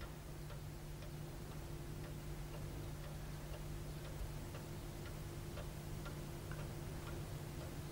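Clock ticking faintly and evenly, about two ticks a second, over a steady low hum.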